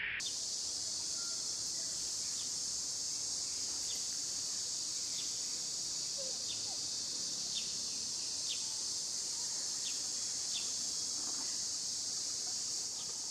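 Insects buzzing in a steady, high-pitched chorus, with faint short chirps about once a second.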